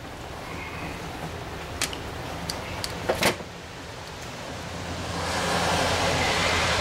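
Sharp clinks and clicks of metal outboard carburetor parts being picked up and handled on a workbench, over a steady low hum. About five seconds in, a louder, even rushing noise rises and holds.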